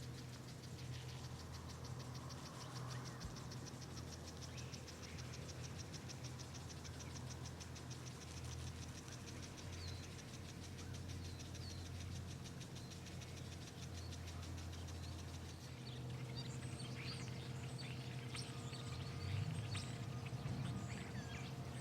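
A steady low mechanical hum, like an engine idling, under faint outdoor ambience; from about two-thirds of the way in, small birds give short, scattered chirps.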